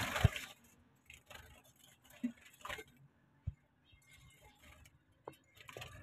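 A few faint, scattered clicks and taps, with a sharper knock at the very start.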